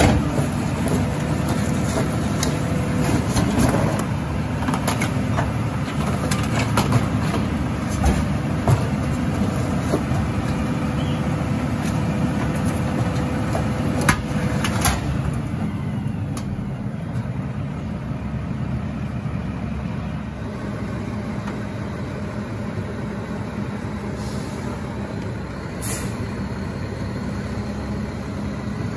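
Mack LR rear-loader garbage truck running, with scattered sharp knocks and clanks over the first half. About halfway through the knocks stop and it settles into a quieter, steady low rumble.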